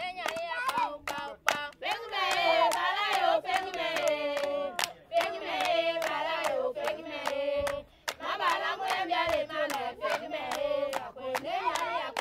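A group of people singing together in unison, with steady rhythmic hand-clapping keeping time. The singing pauses briefly twice, between phrases.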